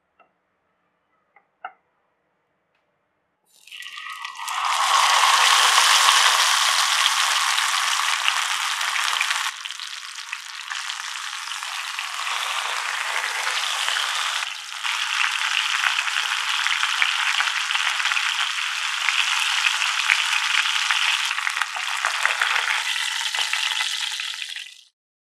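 Hot oil sizzling steadily as a whole masala-coated fish shallow-fries in a nonstick pan. The sizzle starts suddenly a few seconds in, after a few faint clicks, dips briefly twice and cuts off just before the end.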